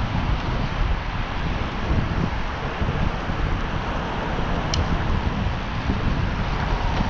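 Wind rushing over the microphone of a moving cyclist's action camera, with a steady low road and traffic rumble underneath. A brief high chirp about five seconds in.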